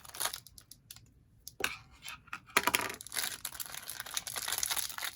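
Small crinkly plastic packaging bag being cut with child's safety scissors and handled: short snips and crinkles, busiest from about halfway in.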